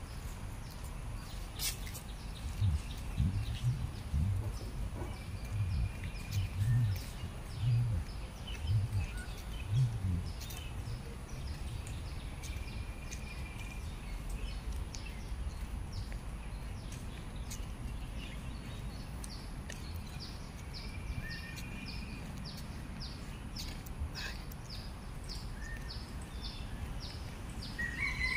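Birds calling over a steady low background rumble: short whistled notes every several seconds, and a quick regular series of short high chirps, about two a second, in the last third, ending with a louder call. Low thuds come and go in the first ten seconds.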